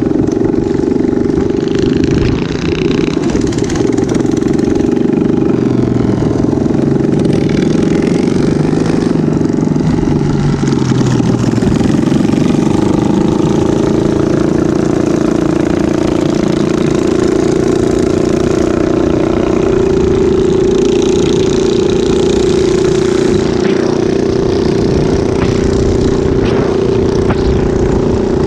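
Small minibike engine running steadily while riding at speed, with wind noise over the microphone.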